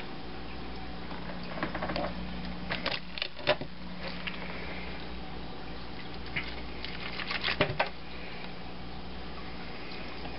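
A kitchen knife stabbing and working into a pink salmon's head in a stainless steel sink, giving sharp clicks and knocks in two clusters, about three seconds in and again about seven seconds in. A steady low hum runs underneath.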